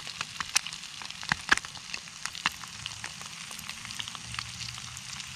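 Eggs and bacon frying in a Jiffy Pop foil popcorn pan: a steady sizzle with many sharp pops and crackles, the loudest about one and a half seconds in.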